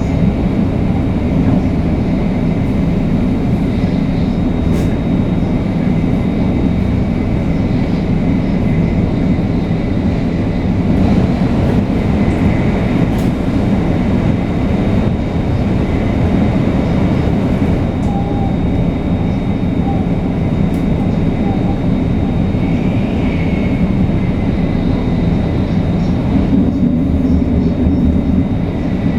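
500 series Shinkansen running steadily at speed, heard from inside the carriage. A constant rumble of wheels and running gear carries a faint steady high tone.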